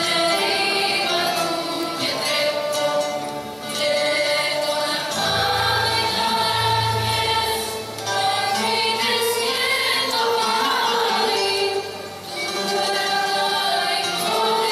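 A choir singing in long held phrases, with brief breaths between phrases every few seconds.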